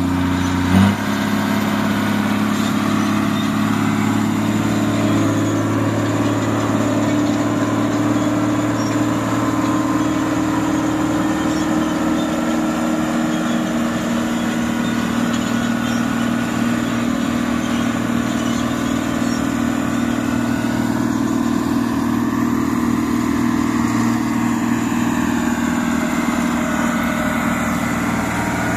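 New Holland 8060 combine harvester's diesel engine running steadily, close by. About a second in there is a brief loud click, and the engine's tone changes.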